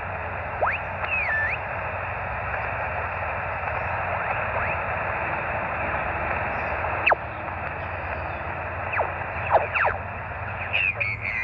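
Shortwave amateur receiver being tuned across the 20-metre band: a steady hiss of band noise squeezed into the narrow voice passband, with several brief whistles sliding in pitch as the dial passes over carriers. Near the end a sideband voice begins to come through.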